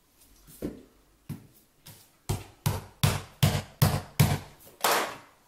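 A hand thumping down on a foam shower curb about ten times, the knocks coming faster as they go, to bed it into the mortar and bring it level.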